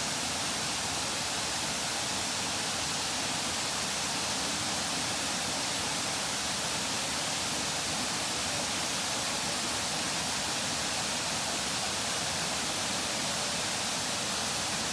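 Steady rushing roar of a large waterfall, Shifen Waterfall's water crashing down, even and unbroken.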